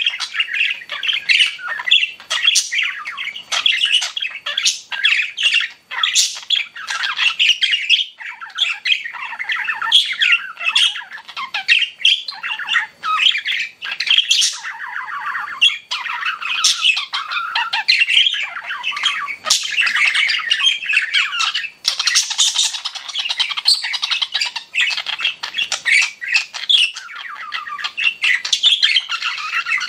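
Pet budgerigars (budgies) chirping and warbling in a continuous busy chatter, with many sharp short calls throughout.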